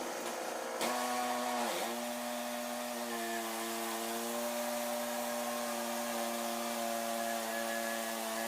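A motor humming steadily, with a brief dip in pitch just before two seconds in before it settles back.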